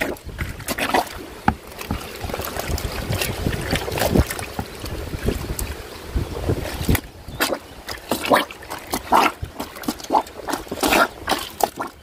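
Rubber plunger worked up and down through soapy clothes in a plastic tub of water, sloshing and splashing in irregular strokes: laundry being agitated by hand.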